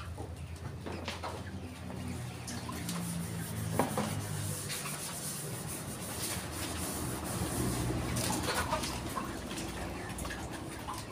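Young laying hens clucking in the rearing coop while a plastic water bucket is scrubbed and handled, with scattered clicks and a scraping hiss in the middle.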